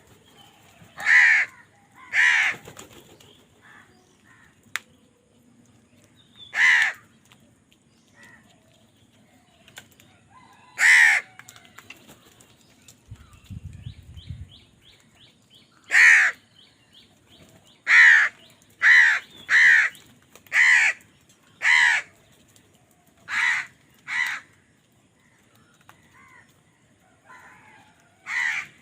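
Crows cawing: harsh single caws spaced a few seconds apart, then a run of about seven caws roughly a second apart in the second half.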